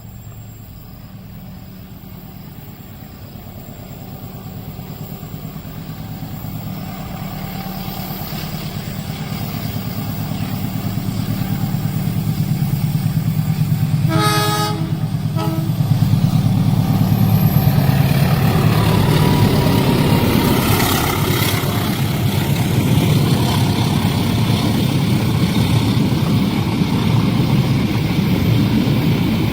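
Train approaching and passing: its low hum grows steadily louder, and about halfway through the train sounds its horn, one long blast followed by a short one. After that comes the loud, steady rumble and rush of the train going by on the rails.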